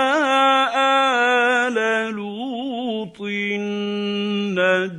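A man reciting the Quran in measured tajweed style, drawing out long held vowels on slowly wavering notes, with a short breath about three seconds in.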